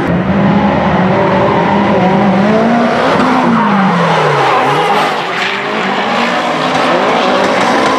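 Nissan S-chassis drift cars in a tandem drift, engines held high in the revs over loud screeching tyres. About four seconds in, one engine's note drops sharply.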